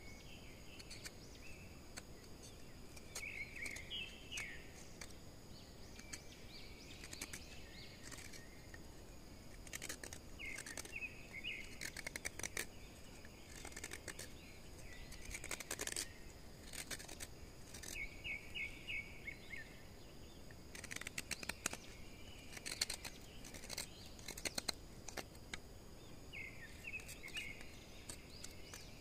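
Birds chirping in short repeated trills over a steady high insect drone, with sharp clicks and scraping sounds coming and going, the loudest about halfway through and again two-thirds of the way in.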